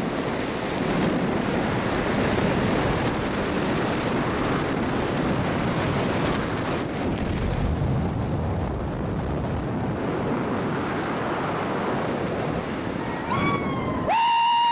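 Strong wind rushing over a skydiver's helmet-camera microphone during the descent. Near the end the wind stops abruptly and a loud, held high note with overtones takes over.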